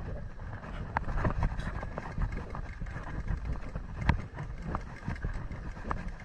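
Footsteps on a gravel path with a steady low rumble on the microphone and a few sharp knocks, the loudest about four seconds in.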